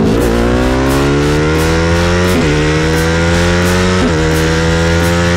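Sport motorcycle engine accelerating through the gears. Its pitch climbs steadily and drops sharply at each upshift: at the very start, a little before halfway and about three-quarters through.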